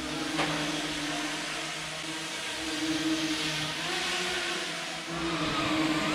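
Small FPV tricopter drone in flight, its motors and propellers whining steadily, the pitch wavering slightly as the throttle changes.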